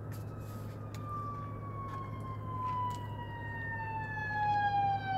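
Emergency vehicle siren in one slow wail, its pitch falling steadily and growing louder toward the end. A steady low hum runs underneath.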